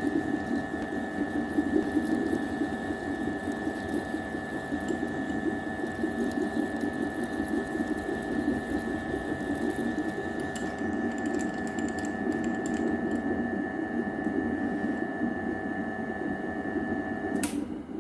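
A small machine or motor running with a steady hum. It cuts off suddenly with a click just before the end.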